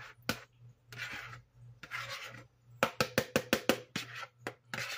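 A utensil scraping the inside of a mixing bowl to get out the last of the roast beef and gravy, two scraping strokes, then a quick run of about eight taps against the bowl.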